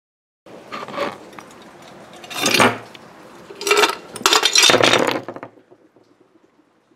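Hard clattering and clinking in four loud bursts over about four seconds, from a liquid-nitrogen-frozen hockey puck that has shattered into pieces under a dropped weight.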